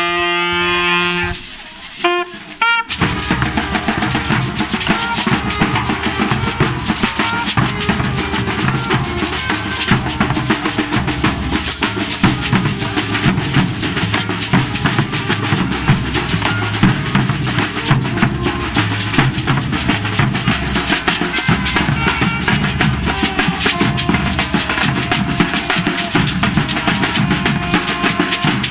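A saxophone plays a few held notes. Then, about three seconds in, a dense street-band drum and percussion groove with shakers takes over and keeps a steady beat.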